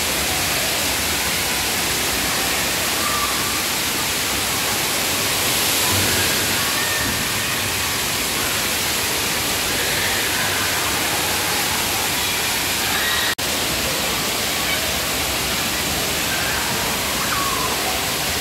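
Steady rush of falling water from a water playground's spouts and spray jets, with a momentary drop-out about two-thirds through.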